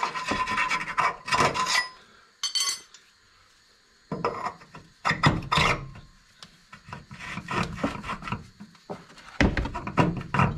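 TeraFlex SpeedBump bump stop being pushed and twisted by hand into a freshly cut metal jounce tube, scraping and rubbing against the tube where it catches at the top. It goes in several short irregular bouts with pauses between.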